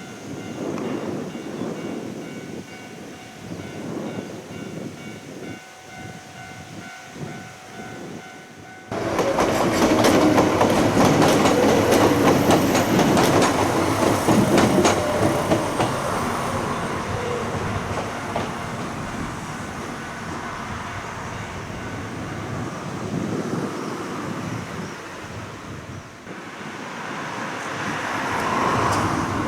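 Iga Railway train passing over a level crossing, its wheels clattering over the rail joints. The train gets much louder suddenly about nine seconds in, then slowly fades. In the quieter opening a crossing warning alarm rings as a few steady tones.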